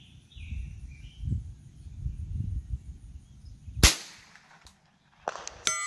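A single shot from a Ruger 10/22 .22LR rifle about four seconds in, after a few seconds of wind rumbling on the microphone. Near the end comes a sharp ping that rings on in several steady tones.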